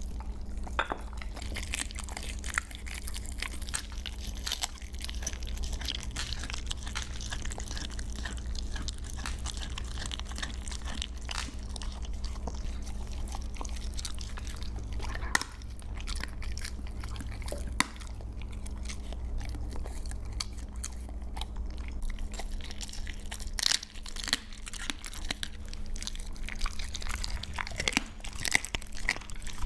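Siberian husky chewing raw chicken: wet chewing with frequent crunches and sharp clicks of teeth on the meat, over a steady low hum.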